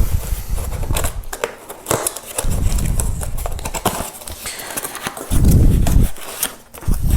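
Unpacking noise from a cardboard shipping box holding a tripod: rustling and clicks of packaging, with several dull low thumps as it is handled.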